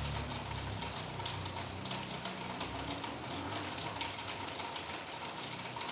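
Steady rain falling, an even hiss throughout. A low engine hum underneath fades out about three seconds in.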